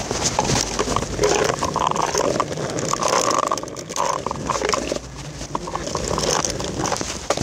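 Hard plastic wheels of a child's pedal tricycle rolling over concrete and asphalt, a steady rattling grind with short squeaks and knocks over the pavement joints.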